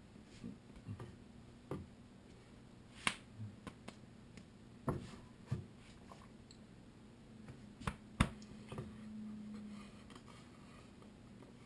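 Scattered sharp clicks and slaps from hands moving, a second or two apart, over a faint steady low hum.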